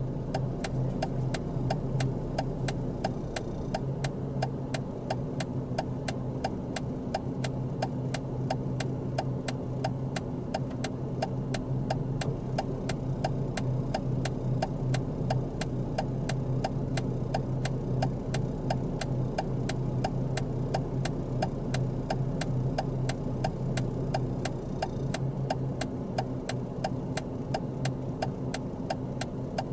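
Car engine idling with a steady low hum, overlaid by an even ticking of about two to three clicks a second.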